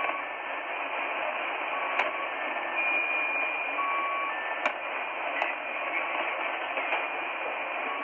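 The 'Squeaky Wheel' Russian military channel marker on 3828 kHz, received in upper sideband on a Tecsun H-501x shortwave radio. Steady static hiss carries a few short beeping tones at two different pitches, with occasional sharp crackles of static.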